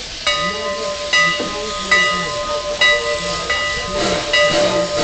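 Steam locomotive's bell ringing steadily, a clear struck ring about every 0.8 seconds.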